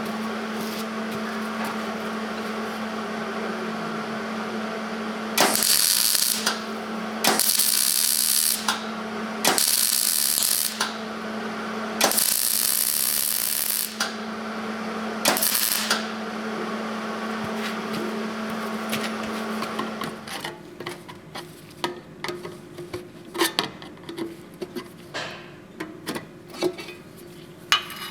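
A steady machine hum with five bursts of loud compressed-air hissing, each a second or two long. Then the hum stops and scattered metal clinks and knocks follow.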